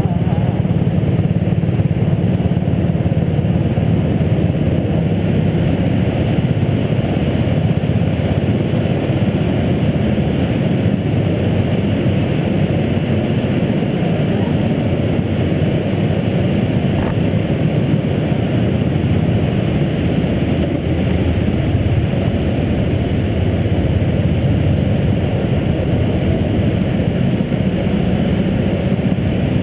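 Petrol go-kart engines running together in the pit lane, a steady, loud mixed drone with no single engine standing out.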